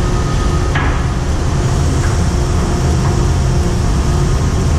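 Steady low rumble of a ship's machinery on deck, mixed with wind noise, with a single short knock about a second in.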